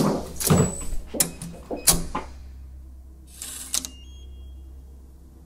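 A run of sharp knocks and thuds about half a second apart, then a short brushing noise with a couple of clicks a little after three seconds, over a low steady hum.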